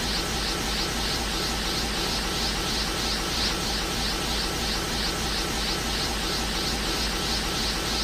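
Anime-style energy aura sound effect for Golden Cooler: a steady rushing hiss with a fast flickering pulse, about three times a second, looping without change.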